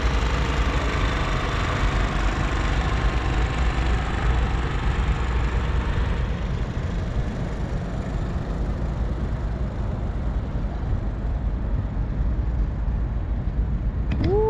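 Steady, pitchless outdoor rumble and hiss, heaviest in the low end, easing somewhat after about six seconds.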